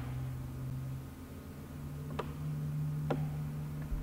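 Two sharp computer mouse clicks, about two and three seconds in, over a steady low electrical hum.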